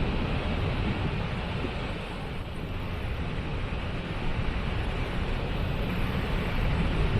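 Waterfall: a steady rush of falling water, heaviest in the low end.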